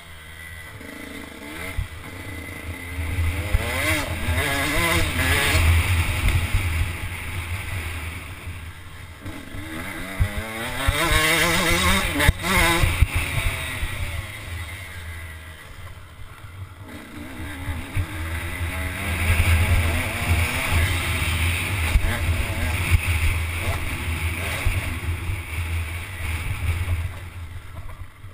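Dirt bike engine revving up and easing off in several long swells, its pitch rising and falling, with a low wind rumble on a helmet-mounted microphone.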